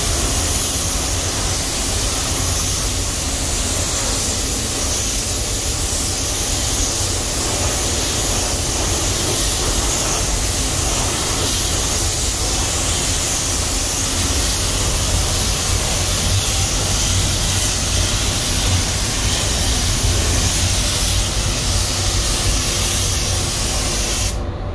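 Compressed-air paint spray gun hissing steadily as it lays clear coat onto a car bumper, with a low rumble underneath.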